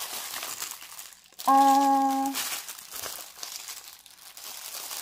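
Packaging crinkling as it is handled during an unboxing. About a second and a half in, a voice holds a steady, drawn-out 'euh' for nearly a second; this is the loudest sound.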